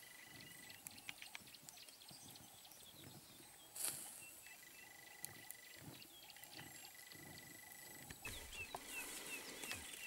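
Faint crackling of a smouldering wood fire, with scattered small clicks and a sharper pop about four seconds in, and a thin whistling tone that comes and goes. Near the end come quick short chirps.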